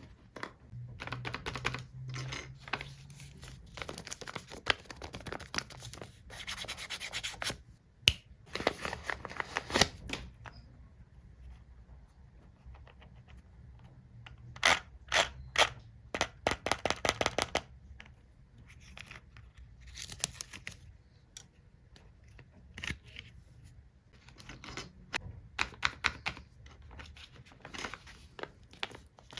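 Hands handling stationery and its packaging in irregular bursts of rubbing and scratching, with runs of quick clicks.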